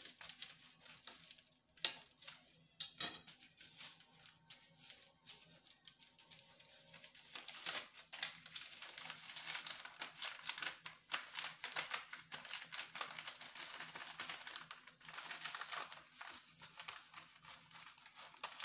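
Parchment paper crinkling and rustling in irregular bursts as hands fold and roll it around a block of cocoa biscuit dough, with palms rubbing over the paper.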